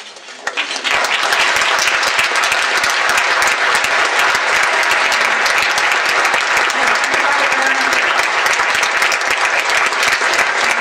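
Audience applauding: many hands clapping densely and steadily, breaking out about a second in.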